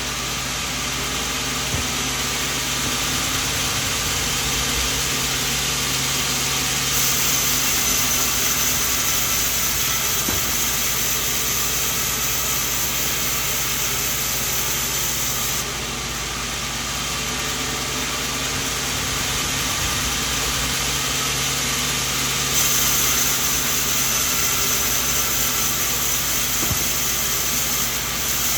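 Band sawmill running steadily, a constant machine hum under a noisy hiss. The high hiss grows brighter about seven seconds in, drops back just past the middle, and brightens again later: stretches of the blade cutting through coconut wood.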